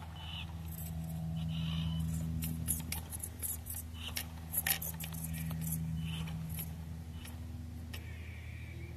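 Axial SCX24 Jeep Wrangler RC crawler crawling over dirt and rock, its small electric motor and gearing whirring steadily. In the middle there is a run of sharp clicks and scrapes from the tires and chassis against rock and grit.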